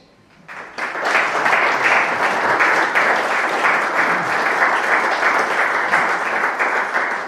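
Audience applauding: many people clapping steadily, starting half a second in, swelling within a second and then holding until it dies away at the end.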